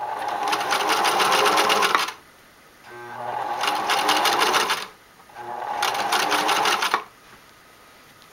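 Singer Merritt 1802 electric sewing machine stitching a straight seam through fabric in three runs of about two seconds each, with short pauses between them; the needle chatters rapidly and evenly while it runs, and it stops about seven seconds in.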